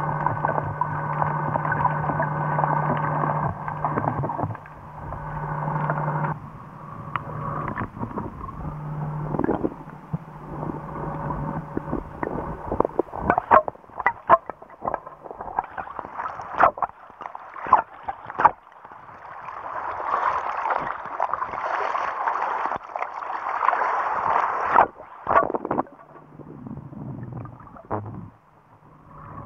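Underwater sound from a freediving spearfishing film: a steady low hum with a higher tone for the first few seconds, then a run of sharp clicks and knocks, then a rushing, bubbling hiss before the hum returns near the end.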